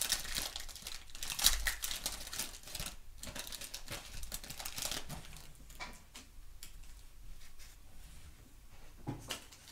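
Waxed-paper wrapper of a 1991 Topps baseball card wax pack being torn open and crinkled, the crackling loudest in the first three seconds. Then fainter rustling and a few soft clicks as the card stack is worked out of the wrapper.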